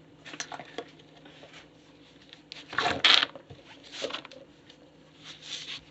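Fidget toys being stepped on and handled: short rustling and scraping noises, the loudest about three seconds in.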